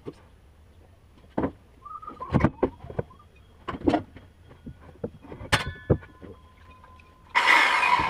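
Rough-sawn wooden planks being stacked by hand on a wooden deck: a string of hollow wooden knocks as boards are set down, one of them ringing briefly. Near the end comes a loud scrape of about a second as a board slides across the stack.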